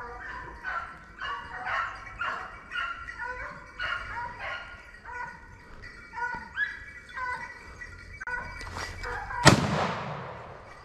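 Running hounds baying in a quick string of cries, about two a second, while they push a wild boar. About nine and a half seconds in comes one loud gunshot that rings out and fades.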